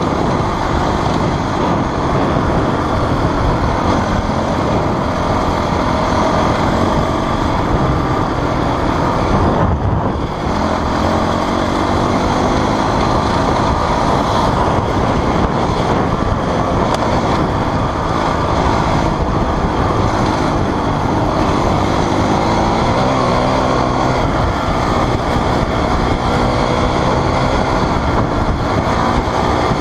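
Dirt bike engine running at speed along a gravel track, heard from on board the bike, with a steady rush of wind and tyre noise over it. The engine note rises and falls with the throttle and drops briefly about ten seconds in.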